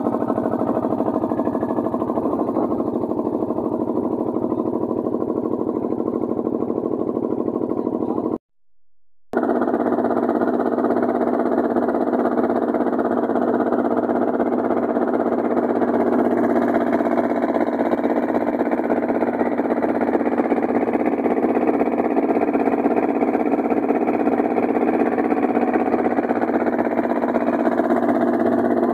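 Boat engine running steadily with a constant drone. It drops out for about a second around eight seconds in, then carries on.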